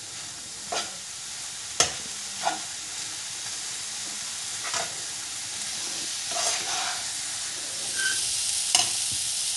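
Chopped cabbage and vegetable momo filling sizzling steadily in a non-stick pan as it is dry-roasted to drive off its moisture, stirred with a wooden spatula that scrapes and taps the pan now and then.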